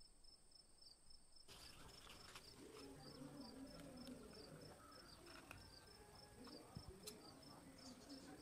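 Near silence with a faint, high chirp repeating about three times a second, like a cricket, and a few faint clicks.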